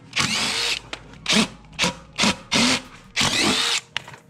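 Cordless drill in short bursts of about six trigger pulls, of varying length and each spinning up in pitch, as it backs out bolts.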